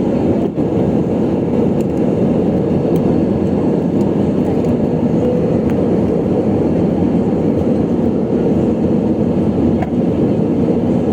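Steady, loud cabin rumble inside an Airbus A320-200: the engines and passing air heard as an even low roar with no change in pitch.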